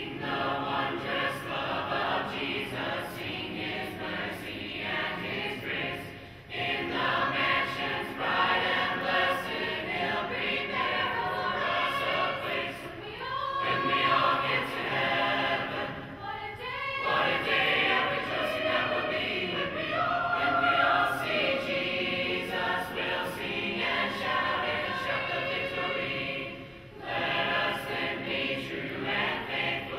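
Large mixed youth choir of boys and girls singing a hymn a cappella, unaccompanied voices only. The singing breaks off briefly about six seconds in and again near the end.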